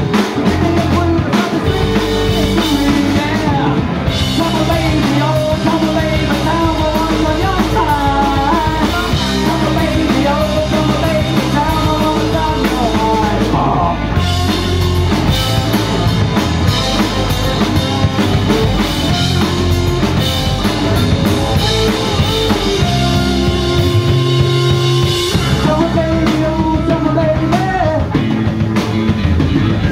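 A rock band playing live and loud: electric guitars, bass guitar and drum kit.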